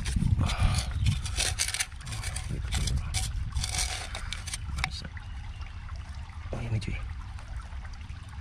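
Rock and soil scraping and crackling as a fossil is dug out of a ravine wall by hand. The scraping is dense for about five seconds, then sparser, over a steady low rumble.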